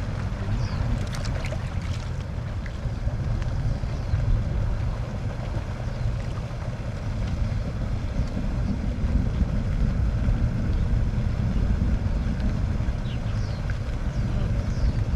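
Steady low rumble of wind buffeting the microphone outdoors, with a few faint high chirps near the start and end.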